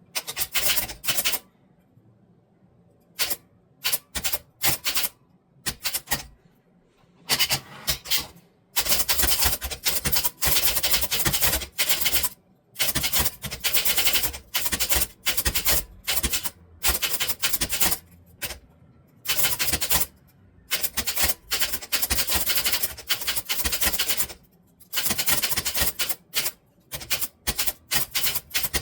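Typewriter being typed on: a few scattered keystrokes at first, then from about seven seconds in fast runs of keystrokes broken by short pauses.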